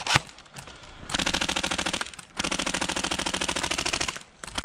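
Airsoft gun firing on full auto in two rapid bursts, the first about a second long and the second nearly two seconds, with a steady mechanical whine under the rapid clicks.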